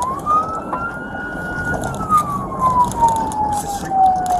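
Police car siren wailing, heard from inside the moving cruiser over engine and road noise: a quick rise at the start, a held high note for about a second, then a slow fall.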